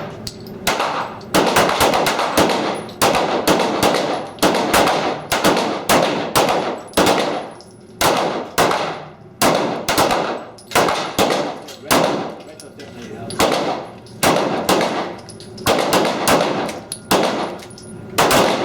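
Handgun shots from several shooters firing along a range line: sharp reports at an uneven pace of about two a second, some overlapping, each with a short echoing tail.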